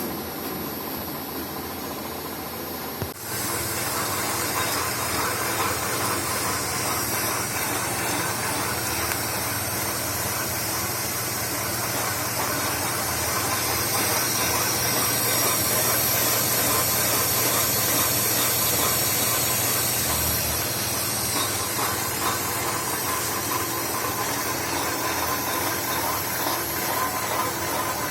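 A metalworking machine running steadily while cutting metal, a low hum under a constant hiss. The sound changes abruptly about three seconds in, then holds steady.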